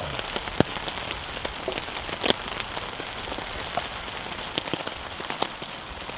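Heavy rain: a steady hiss of falling rain with many scattered sharp taps of drops landing close by.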